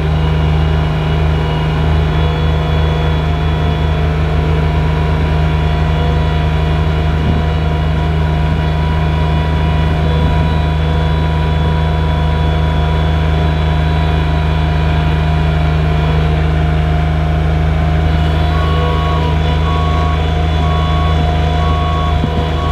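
Bobcat S70 skid steer's diesel engine running steadily under load. From about three quarters of the way in, a backup alarm beeps about twice a second as a machine reverses.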